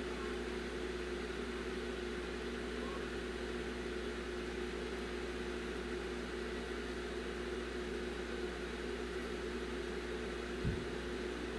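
A steady mechanical hum in a small room, with one soft knock near the end.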